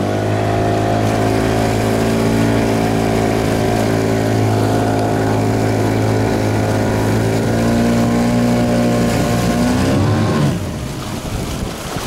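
15 hp outboard motor running flat out under load, straining against a towrope, with a steady, even engine note. About ten seconds in it is throttled back: the note drops and wind and water splash take over.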